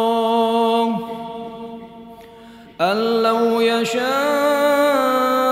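A man reciting the Quran in slow, melodic tartil. He holds a long vowel that fades out about a second in and lingers for a moment in the mosque's echo. Near three seconds in he starts a new long held note.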